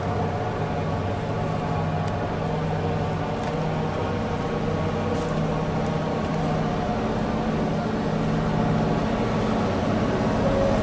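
Steady mechanical hum from a stopped train of JR 24-series blue sleeper coaches, their onboard equipment running with several steady droning tones, growing a little louder near the end.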